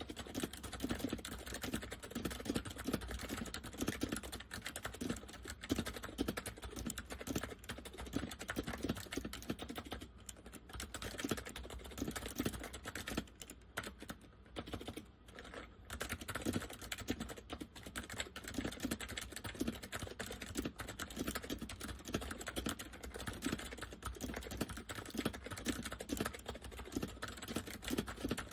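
Continuous fast typing on an Acer 6312K7 keyboard with Acer semi-mechanical switches, the keystrokes clacking with a deep tone from the chassis. The typing thins out briefly around the middle before picking back up.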